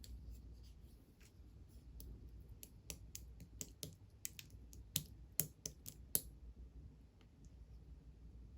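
Clear slime being pressed and poked by hand, giving a run of small, crisp clicks and pops from its bubbly texture. The clicks come in an uneven string from about two seconds in, peak just before the sixth second, then stop, leaving only faint scattered ticks.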